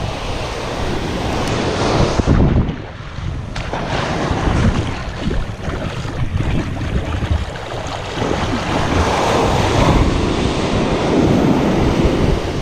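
Small ocean waves breaking and washing up the beach, the surge swelling and easing every few seconds, with wind buffeting the microphone.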